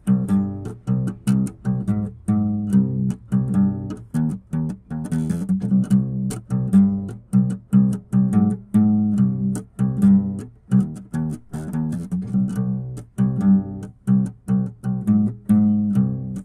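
Background music: a steady run of plucked low string notes, about two or three a second.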